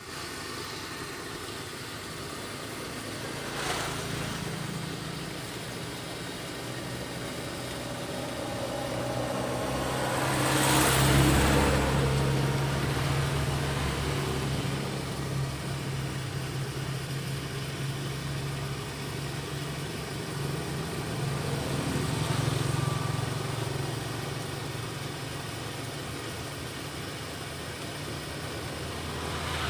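A motor vehicle engine running steadily with a low hum. The sound swells to its loudest about eleven seconds in, then settles again.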